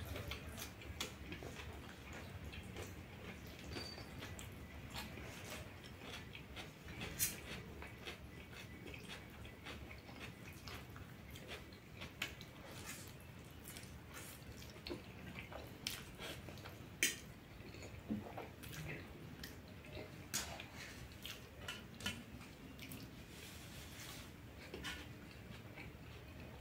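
Close-up eating sounds of a man chewing and slurping through a meal of noodles, cucumber and goat meat: a stream of wet chewing and lip smacks with many short clicks, two of them sharper and louder than the rest.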